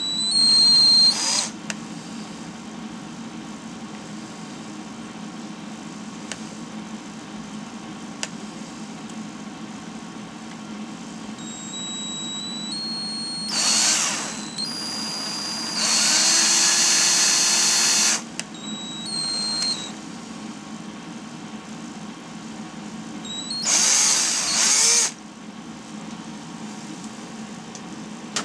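Handheld power drill with a 1/16-inch bit, its motor whining in about five short bursts of one to two seconds with long pauses between, as it bores a small hole into the plastic ball valve of an inkjet cartridge. The longest burst comes about two thirds of the way through.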